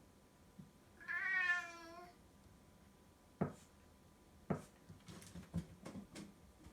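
Brown tabby cat giving one drawn-out meow of about a second, an affectionate, attention-seeking call. Two sharp knocks and a run of small clicks follow.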